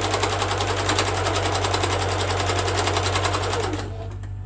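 Sewing machine stitching through a quilt at a fast, even rate, then stopping near the end, leaving a steady low hum.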